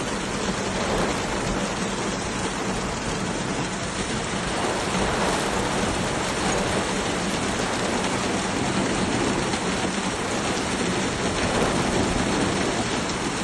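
Floodwater rushing along a flooded street, a steady, even rush of water.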